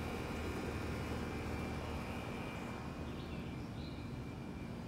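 Steady outdoor background noise: a low, even hum with a few faint bird chirps about three to four seconds in.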